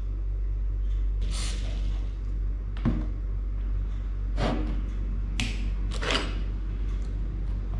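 A short hiss of aerosol lubricant spray, then a few knocks and clatters as a spray can and hand tools are put down and handled on a workbench, over a steady low hum.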